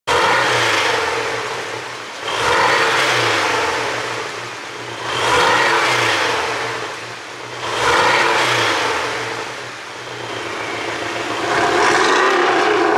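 Porsche 718 Boxster's 2.0-litre turbocharged flat-four revved up and let fall back about five times, roughly every two and a half seconds, the last rev held longer near the end. The engine runs an ECU tune meant to make it pop on the overrun.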